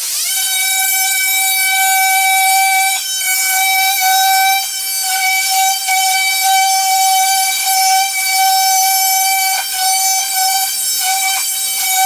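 Oscillating multi-tool cutting into a door jamb: a loud, steady, high-pitched buzz that dips briefly a few times as the blade is worked into the wood to recess the jamb for a switch box.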